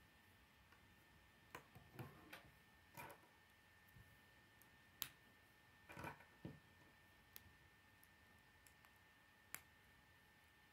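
K'nex plastic rods, connectors and wheels clicking as they are handled and snapped together, about ten faint, sharp clicks at irregular intervals.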